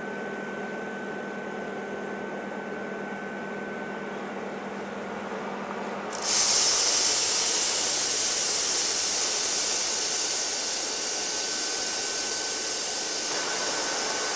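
Freight train hauled by an FS E.652 electric locomotive passing through a station: a steady hum, then about six seconds in a sudden loud hiss sets in and holds until it cuts off at the end.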